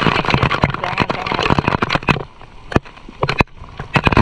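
Pool water splashing and spattering close to the camera, a dense hiss full of sharp crackling taps. It eases off about two seconds in, then picks up again near the end.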